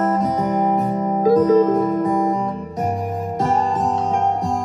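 Acoustic guitar music played back through a Klipsch Heritage loudspeaker, with picked notes ringing out one after another.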